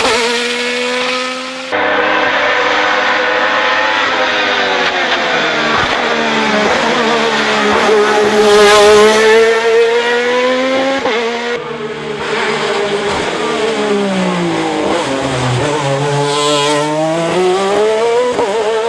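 Alfa Romeo 155 ITC/DTM race car's V6 engine at racing revs, its pitch climbing and dropping again and again through gear changes and braking for corners. The sound jumps abruptly twice, about two seconds and about twelve seconds in.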